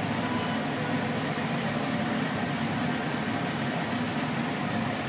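Steady engine drone of grape-harvesting machinery running, with a low, even hum and no changes in pitch.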